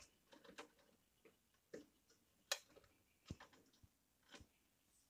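Faint, irregular clicks and taps, about eight in all, from power-supply wire bundles and plastic connectors knocking inside a desktop PC's steel case as the wires are jiggled to check that the connections are tight.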